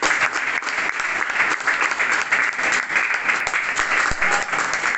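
A group of people clapping steadily.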